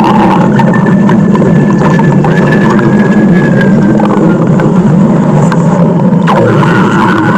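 Loud stomach growl sound effect: a continuous low rumble with a thin whining tone that slowly falls, shifting abruptly about six seconds in.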